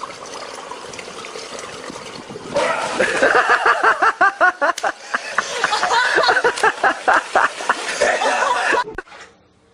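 A steady rushing noise, then from about two and a half seconds in a person laughing hard in rapid pulsing bursts, cut off sharply near the end.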